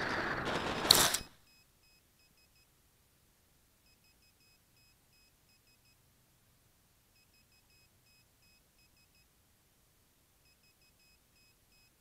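Wind rushing over a model airplane's onboard camera microphone as it skims low over grass, ending in a sharp knock about a second in as the plane comes down in tall grass. Then near silence, with faint electronic beeps in short groups every second or two.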